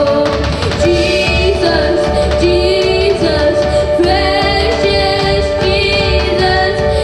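Worship music: a woman's voice sings held, wavering notes over instruments with a steady low beat.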